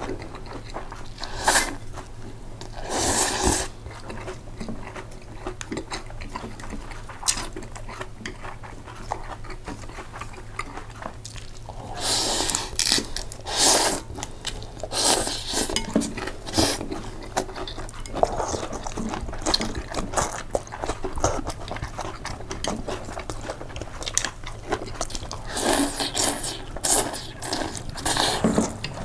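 Close-miked eating of pasta: chewing and biting, with cutlery scraping and clinking on a dish in irregular bursts a few seconds apart.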